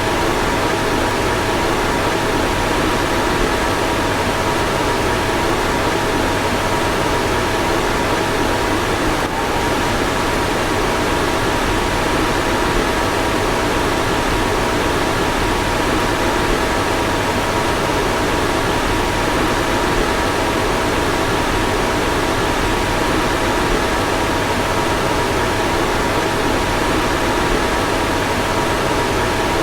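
A car's fan blowing steadily: an even rush of air with a faint, steady two-note hum over it.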